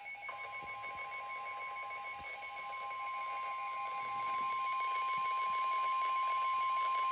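NOAA Weather Radio 1050 Hz warning alarm tone: a single steady tone that starts about a third of a second in and holds without a break, the signal that a warning broadcast follows. A faint pulsing higher whine runs beneath it.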